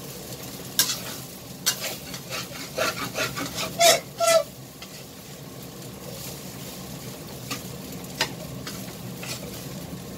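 Fried rice sizzling in a stainless steel wok while a long metal spoon stirs it, scraping and clinking against the pan. The strokes come thickly in the first half, the loudest pair ringing briefly about four seconds in, then thin out to a few clinks over the steady sizzle.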